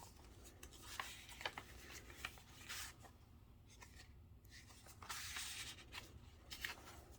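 Faint rustling and sliding of paper and card as handmade journal pages, tags and cards are handled, with a few light taps.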